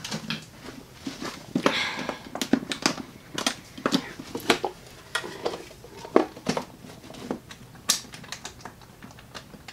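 Irregular light clicks, taps and rustles of a person moving about and handling a hard plastic Power Rangers helmet, pulling it on over the head.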